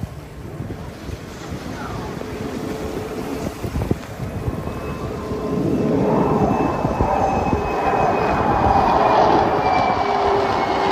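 Jet engine roar from a formation flypast of a large jet and fighter jets, growing louder about six seconds in as they come overhead, with a faint high whine above the rumble.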